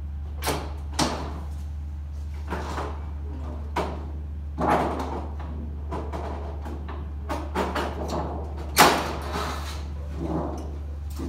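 Portable sheet-metal brake bending aluminium trim coil: a string of sharp metal clanks and short scrapes as the brake is clamped and swung and the sheet is moved, the loudest clank about nine seconds in. A steady low hum runs underneath.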